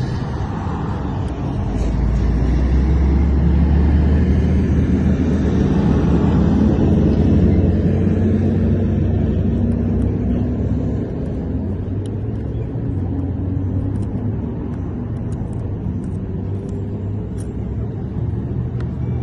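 A motor vehicle's engine running close by, a low rumble that swells about two seconds in and eases off after about ten seconds. Faint light clicks come through in the second half.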